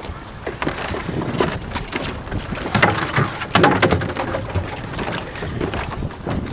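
Irregular knocks and clatter around a rowing boat at its mooring, with wind noise on the microphone; the loudest knocks come about three and three and a half seconds in.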